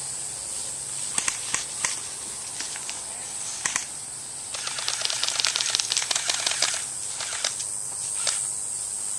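Airsoft guns firing: a few sharp single snaps between one and four seconds in, then about two seconds of rapid rattling clicks, over a steady high hiss.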